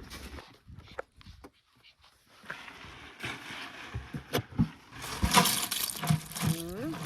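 Water running and splashing, starting after a few knocks and handling sounds and getting stronger about five seconds in, with a brief rising and falling tone near the end.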